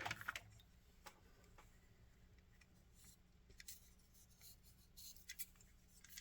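Near silence with a handful of faint light clicks and taps from HO-scale model railroad cars being handled.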